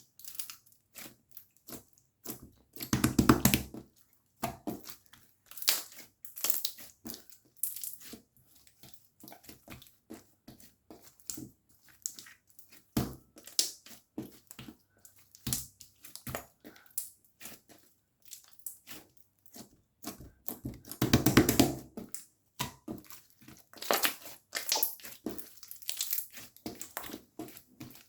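Blue clear slime being squished and pressed by hand, with dense, irregular crackling clicks and pops. There are two longer, louder squelching bursts: one a few seconds in and one about two-thirds through.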